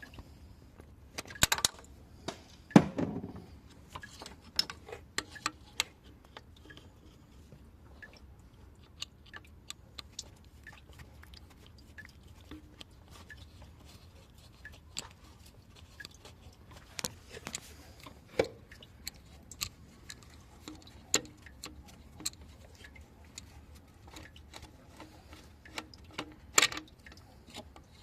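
Irregular light clicks and small metallic knocks of tools and parts being handled during thermostat replacement work on a car engine, with a louder knock about three seconds in.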